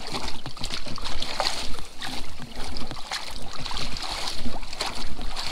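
Stream water sloshing and splashing, with scattered drips and small knocks, as people wade through a shallow stream working a scoop net, over a steady low rumble.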